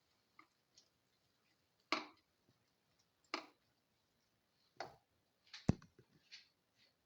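A cooking utensil scraping and knocking in a pan as chicken, tomato and salt are stirred together: several separate strokes a second or more apart, then a quicker cluster with one sharp knock about three-quarters of the way through.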